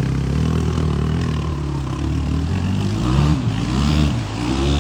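Vehicle engine revving: its pitch holds steady, climbs about three seconds in, drops briefly, then climbs again near the end.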